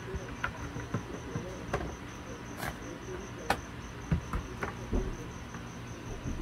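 Sharp plastic clicks and knocks from handling a portable speaker's plastic case and its small wire connector, several separate clicks with the loudest about halfway through. Under them, a steady high pulsing chirp, about five pulses a second.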